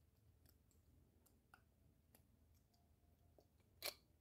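Mostly near silence with faint, scattered clicks of plastic Lego bricks being handled and pressed together, and one louder click near the end.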